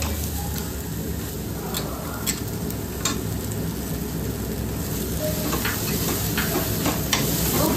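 Chopped onion and capsicum sizzling in a little mustard oil in a steel kadai, with a spoon stirring and now and then clinking against the pan.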